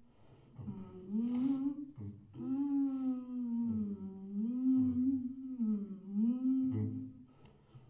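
A voice humming a slow melody in short phrases that rise and fall in pitch, with brief pauses between them; it stops shortly before the end.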